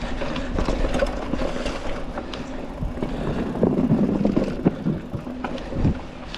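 Mountain bike on tubeless tyres rolling over a dirt trail: tyre rumble with chain and frame rattle and knocks from bumps and roots, loudest about four seconds in.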